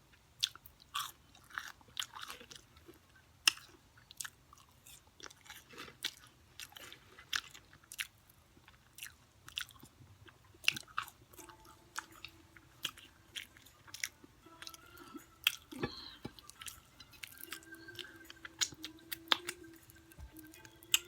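A person chewing crispy fried food, fried chicken and french fries, close up: frequent sharp crunches and wet mouth smacks.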